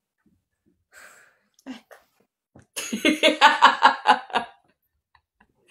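A woman laughing: a run of quick, evenly spaced ha-ha pulses lasting about a second and a half, starting nearly three seconds in, after a couple of soft breaths.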